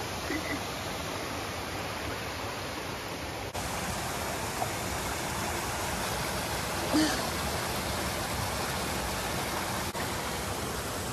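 Running water of a rocky mountain stream and small waterfall, a steady hiss, with one brief voice sound about seven seconds in.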